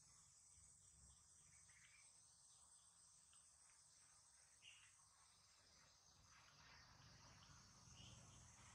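Near silence with faint steady insect chirring in the background, and a few faint soft clicks.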